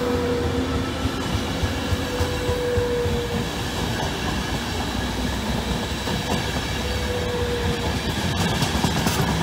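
Intercity passenger coaches rolling past on the rails: a steady rumble of wheels on track, with a faint thin whine for the first few seconds and again about seven seconds in.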